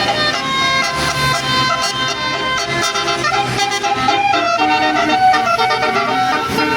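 Tour bus's basuri telolet horn playing a melody, a loud multi-tone horn stepping from note to note.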